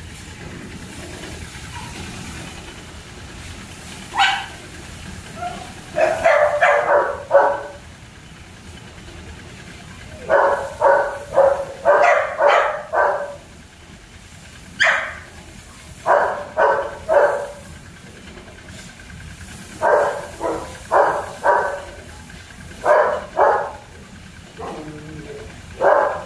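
German shepherd puppies barking in bursts of three to six quick barks every few seconds, with a couple of single sharp yips between the bursts.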